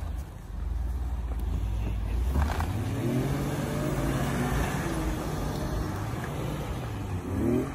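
Off-road vehicle engine running at a low steady note, then revving up about two and a half seconds in and staying revved, its pitch wavering up and down, with a quick rise near the end.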